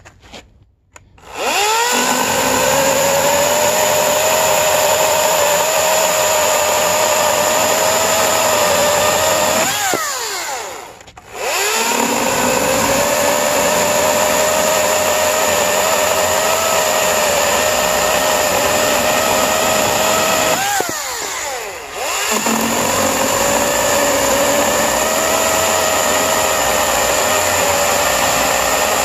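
EGO 14-inch cordless electric chainsaw cutting through a white oak beam, its motor and chain running with a steady whine. It winds up about a second in, then spins down and starts straight back up twice, about a third and two-thirds of the way through.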